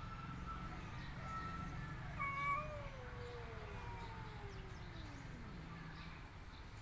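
A cat's yowl in a standoff with another cat: one long, drawn-out call, loudest at its start a little over two seconds in, sliding steadily down in pitch over about three seconds. This is a warning yowl at a rival cat.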